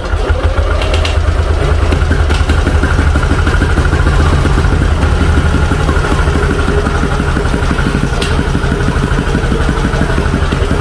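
Yamaha Aerox 155's single-cylinder scooter engine catching right at the start and then idling steadily. It is running on a battery backed by a charger; the owner blames a failed stator in the charging system for its hard starting.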